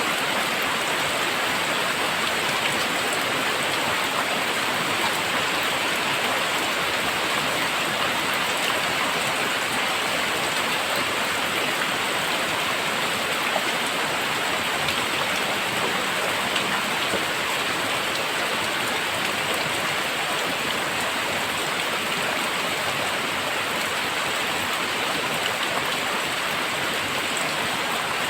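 Heavy rain pouring steadily, a dense even hiss of drops with a few faint individual drop ticks.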